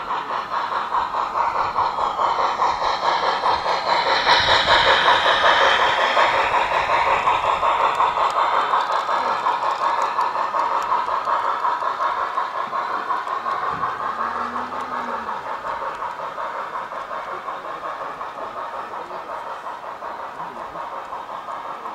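Garden-railway model freight train, a steam locomotive hauling hopper wagons on transporter wagons, rolling past with a fast, even clatter of wheels on the track. It is loudest about five seconds in and slowly fades as the train draws away.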